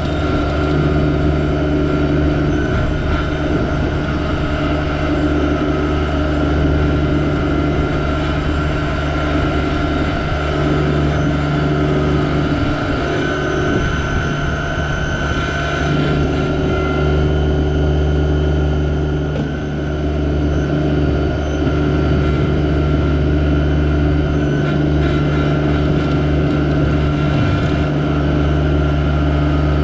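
Yanmar SA324 compact tractor's three-cylinder diesel engine running steadily at a constant speed.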